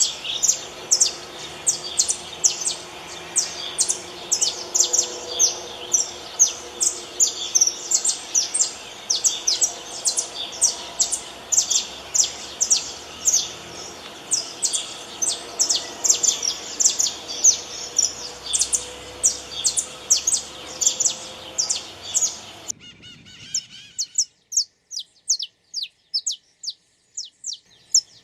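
Saffron finch singing: a fast, continuous run of sharp, high chirps, about three or four a second. About 23 s in, the background hiss cuts out suddenly while the chirping goes on.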